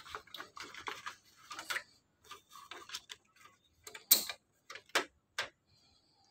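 Sheets of paper rustling and sliding into the plastic paper tray of a Brother DCP-1510 laser printer, with short plastic clicks and taps as the tray and its cover are handled. The sharpest click comes about four seconds in, as the cover is set over the paper.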